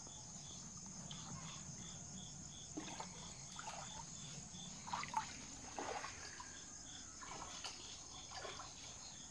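Faint water trickling and splashing in shallow water, with an insect chirping in regular pulses, about three a second.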